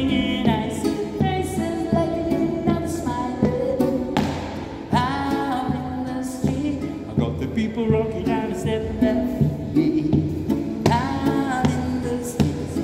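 A man singing to his own strummed classical guitar, with long held notes over a steady strumming rhythm.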